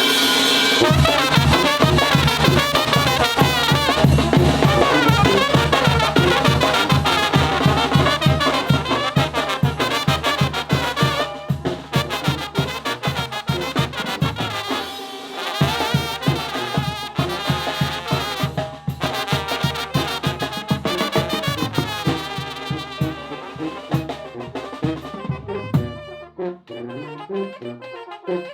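Mexican brass banda playing a jarabe: trumpets and trombones carry the tune over a steadily pulsing bass line. The band drops out briefly about halfway and thins out near the end.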